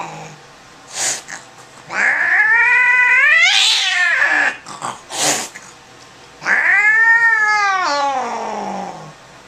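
Angry domestic cat yowling while restrained for a vet examination: two long drawn-out caterwauls, the first rising sharply in pitch, the second arching and then sliding down.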